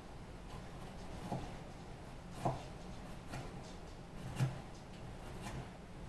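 A handful of light, sharp knocks, about one a second, over a low steady hum.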